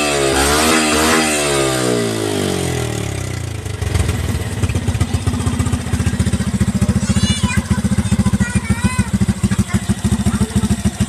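Suzuki Shogun 125 motorcycle engine breathing through a 28mm Keihin carburettor, its revs wavering as the throttle is blipped. The revs then fall away over a few seconds and settle into a lumpy, pulsing idle.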